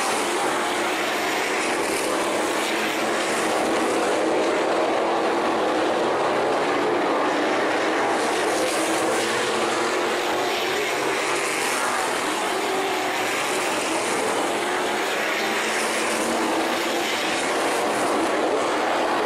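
A field of sprint cars racing on a dirt oval, their engines blending into a steady loud din that swells every few seconds as cars go by.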